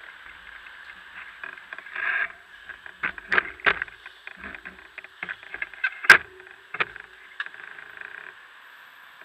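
Handling noise on a Drift HD170 action camera: irregular sharp clicks and knocks with some rustling over a steady hiss. The loudest knock comes about six seconds in, and it settles after about eight seconds.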